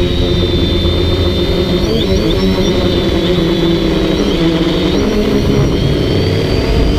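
DJI Flamewheel F450 quadcopter's motors and propellers buzzing in flight, with several tones wavering and shifting in pitch as it manoeuvres, over a low rumble.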